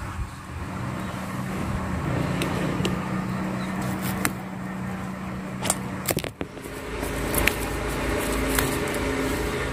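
A knife cutting fleshy aloe vera leaves from the plant, a few short sharp snaps, over a steady motor-like hum that changes pitch about six seconds in.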